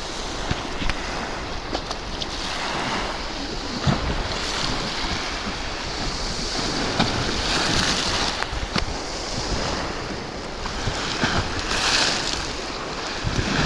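Wind-driven surf breaking and washing onto a shallow shore, the wash swelling and easing every few seconds, with strong wind buffeting the microphone.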